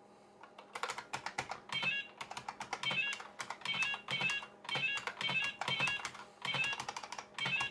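Keyboard keys clattering in quick, uneven runs as the player steers the on-screen muncher and eats numbers, starting about half a second in. Short electronic chirping beeps from the IBM PS/2 Model 25-286's built-in speaker come every half-second to a second, mixed in with the keystrokes.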